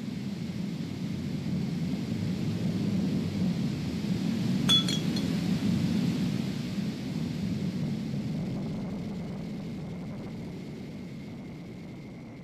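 A passing passenger train, a low rumble that swells to a peak about five seconds in and then slowly fades. A thin steady high ringing tone runs under it, and a single sharp clink sounds just before the peak.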